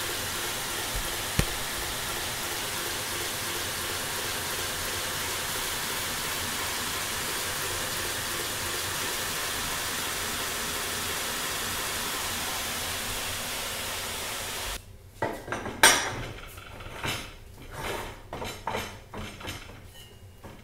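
Homemade 2x72 belt grinder with a 1.5 horsepower motor running with no workpiece: a steady hiss of the abrasive belt over the wheels with a faint hum. About fifteen seconds in, the running sound cuts off suddenly. A series of metallic knocks and clatter follows, the loudest just after the cut.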